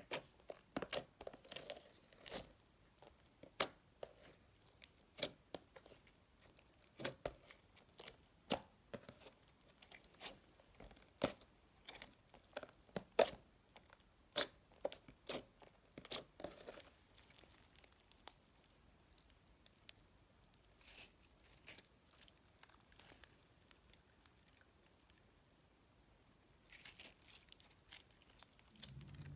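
Store-bought floam slime being squished and pressed, its foam beads crackling in sharp, irregular pops. The pops come thick and fast for the first half, then thin out and grow fainter.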